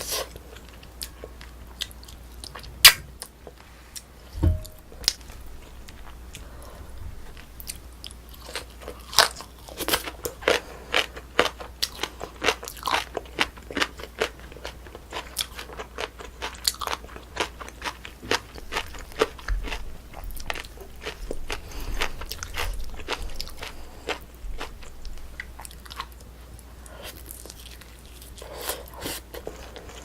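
Close-miked chewing and biting of mouthfuls of braised spicy chicken, with many small wet crunching clicks. A single knock with a low thud comes about four and a half seconds in.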